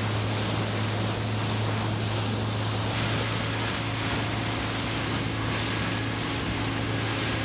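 Motorboat engine running at a steady drone, with water rushing past the hull and wind buffeting the microphone.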